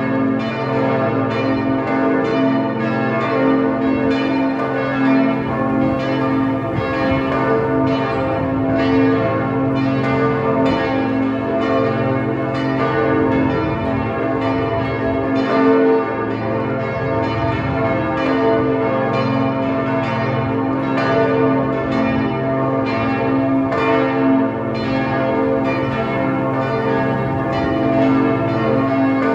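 Church bells ringing a continuous peal: several bells struck in quick succession, a few strokes a second, their tones overlapping and ringing on.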